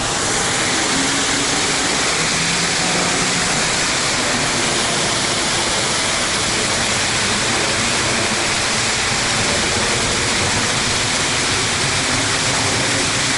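Waterfall rushing steadily and loudly: an even wash of falling water.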